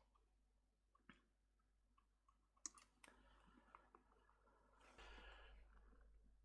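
Near silence with a few faint, sharp clicks and light handling rustle.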